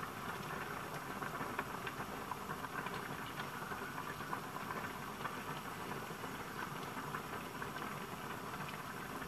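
Pot of broth boiling on a gas stove: a steady bubbling hiss with many small pops.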